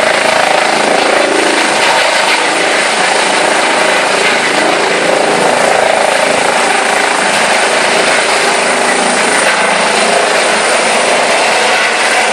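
Air ambulance helicopter's turbine engines and rotors running loud and steady as it lifts off the helipad and climbs into a hover, with a thin high turbine whine over the rotor noise.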